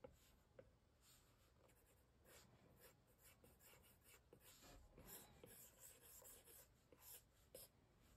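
Faint scratching of a stylus tip drawing short, quick strokes across an iPad's glass screen, with a few light taps.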